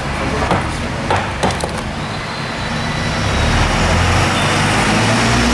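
A few sharp knocks, then a motor vehicle running and growing louder over the last few seconds.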